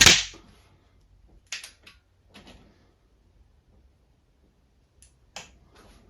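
A single shot from an Anschütz 9015 HP PCP air rifle at the very start, dying away within half a second. It is followed by a few light mechanical clicks, about one and a half seconds in and again near the end, as the action is worked to load the next pellet.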